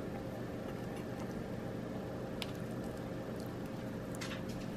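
A spoon softly serving moist rice onto a paper plate, mostly quiet over a steady low hum with a faint steady tone. One faint tick comes about two and a half seconds in.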